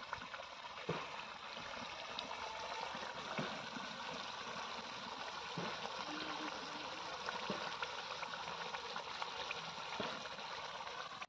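Chicken curry gravy simmering in a kadai, bubbling steadily with many small pops and ticks throughout.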